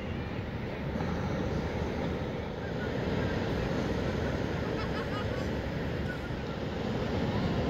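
Steady wind noise buffeting the microphone: an even, low rushing rumble with no breaks.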